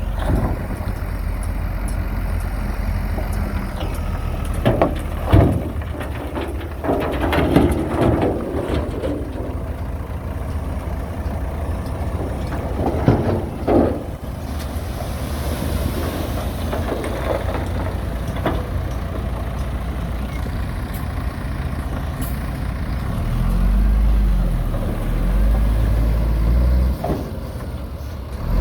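Diesel engines of heavy earthmoving machines running steadily, with several loud metallic clanks or bangs about a fifth and halfway through. Near the end the engine grows louder and its pitch rises and falls.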